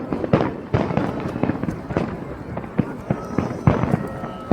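Fireworks going off in quick, irregular succession: many sharp bangs and crackles, several per second.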